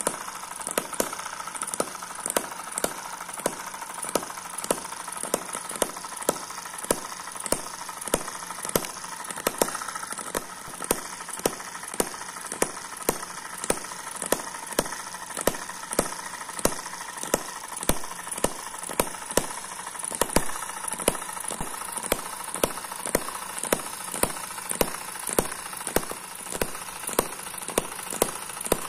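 M19 miniature vertical four-stroke hit-and-miss model engine running: a regular run of sharp firing pops, a little more than one a second, with lighter mechanical clicks between them. Its flying-ball governor keeps the speed within a narrow range.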